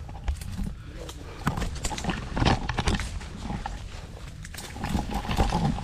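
Mangrove twigs and leaves rustling and snapping as someone forces through the thicket, with irregular cracks and knocks, the loudest about halfway through and near the end.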